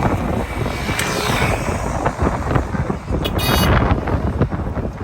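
Busy city street traffic noise with wind buffeting the microphone, and a brief high-pitched tone about three and a half seconds in.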